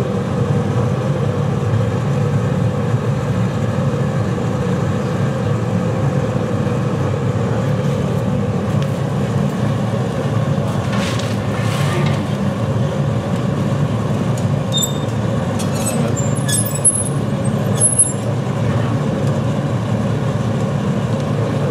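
Steady low roar of a glassworks furnace, its burner and extraction hood running, with a thin hum note through it. A few light metallic clinks near the end.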